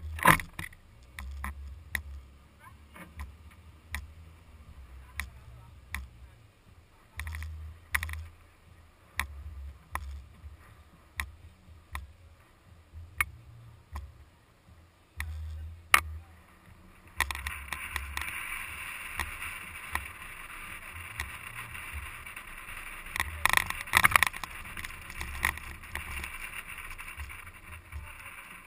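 Wind buffeting a camera mounted on the outside of an SUV driving over sand dunes, with irregular low rumbles and repeated sharp knocks and rattles. About halfway through a steady hiss comes in and stays.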